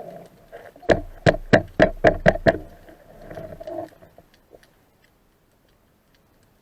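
A quick run of seven sharp knocks, about four a second, over a faint steady hum.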